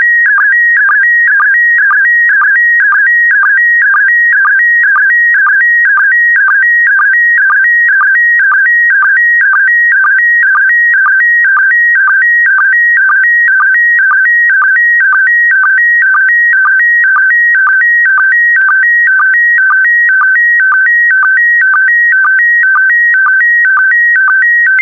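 Slow-scan television signal in PD120 mode: a loud, high electronic tone warbling in a pattern that repeats about twice a second. Each repeat carries scan lines of a picture, here the last lines of an image being transmitted.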